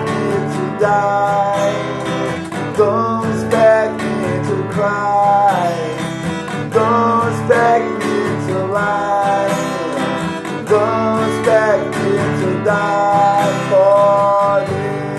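Acoustic guitar strummed in D major, with a melody line gliding over the chords.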